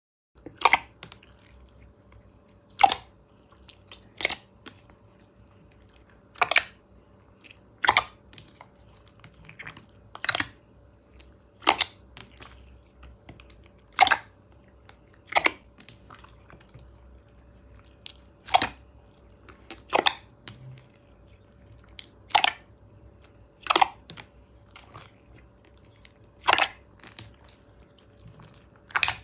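Slime being pressed and squeezed by hand, giving a short, sharp pop about every one to two seconds.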